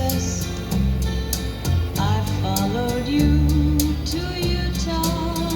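A recorded song played through a Harman Kardon A-402 amplifier and JVC studio speakers: a steady bass line and drums with regular cymbal ticks, joined about two seconds in by a melody that slides between notes.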